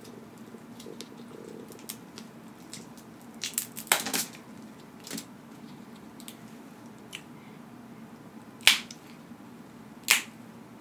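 Cooked crab leg shells being cracked and snapped apart by hand. A quick cluster of sharp cracks comes about four seconds in, then single cracks about a second later, near nine seconds (the loudest) and near ten seconds.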